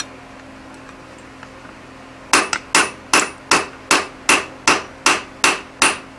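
Hand hammer striking a red-hot 4140 steel hammer head on an anvil, rounding up its ball peen end. One blow, a pause of about two seconds, then a steady run of blows at about two and a half a second, each with a short metallic ring.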